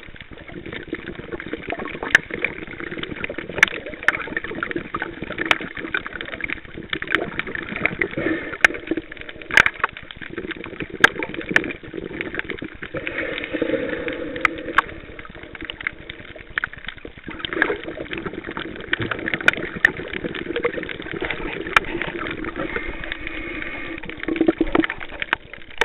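Muffled underwater sound through the camcorder's sealed underwater housing: a steady wash of water movement, crossed by many scattered sharp clicks.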